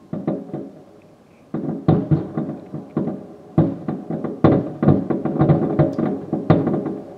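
Aerial fireworks shells bursting: a boom about a quarter-second in, then from about a second and a half in a fast run of booms, two or three a second, each trailing off in echo.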